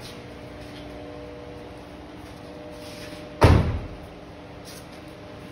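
An SUV's rear door slammed shut once, about three and a half seconds in, with a short ringing decay, over a steady faint hum.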